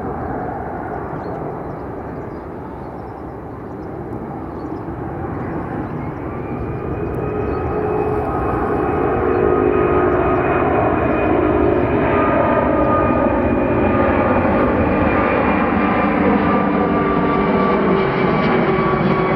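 Jet noise of an Airbus A380's four Rolls-Royce Trent 970 turbofans as the airliner comes in and passes low overhead on a go-around. A deep rush builds over the first several seconds and then holds loud, with whining engine tones that appear about six seconds in and slide slowly down in pitch.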